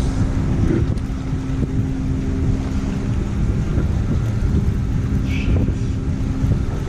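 Wind buffeting the microphone, a dense steady rumble, with a faint steady hum underneath.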